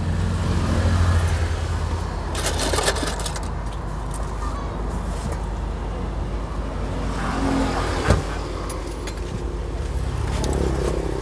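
A motor vehicle's engine running close by as a steady low rumble, louder in the first couple of seconds, with some brief clatter and one sharp knock about eight seconds in.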